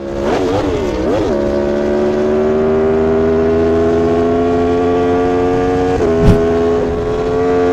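Sportbike engine revved up and down a few times, then held at high revs with its pitch slowly rising. A short knock about six seconds in.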